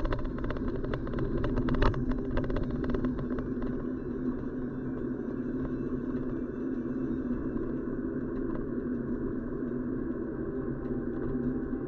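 Car's road and engine noise heard from inside the cabin while driving on wet asphalt: a steady rumble with a low hum. Over the first few seconds a rapid run of clicks and knocks rides on it, with a louder knock about two seconds in.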